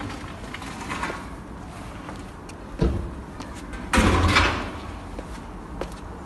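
Footsteps going down concrete outdoor stairs, light scuffs and taps, with a short thud about three seconds in and a louder, half-second thump and scrape about a second later.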